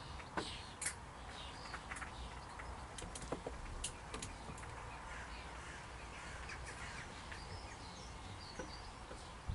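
Birds calling faintly, with short chirps scattered throughout. There are a few sharp clicks or taps, the loudest about half a second and one second in.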